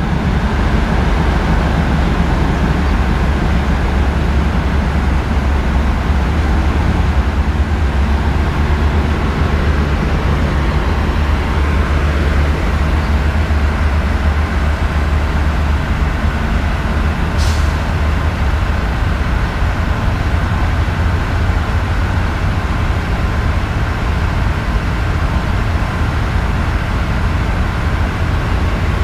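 Passenger train running alongside a station platform, a steady low rumble that does not let up. About seventeen seconds in there is one short hiss.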